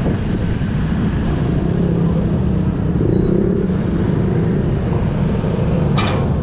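Vespa S125 scooter's single-cylinder engine running at a steady low idle in slow street traffic, with a short sharp high-pitched blip about six seconds in.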